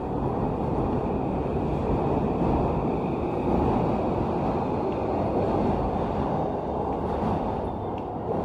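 Steady low rumble of railway station ambience, a little louder in the middle.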